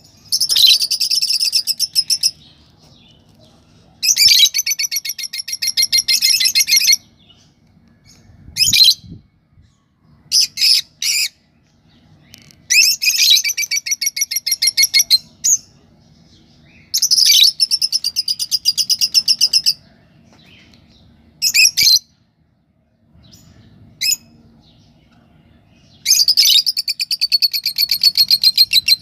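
Pet lovebirds chattering: loud bouts of rapid, shrill chirping, each a few seconds long, recurring every few seconds, with single sharp chirps in between.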